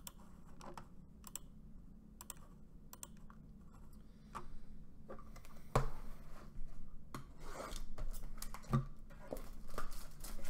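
A few light clicks, then shrink-wrapped cardboard trading-card boxes being grabbed and moved on a desk, with two thumps as they are set down.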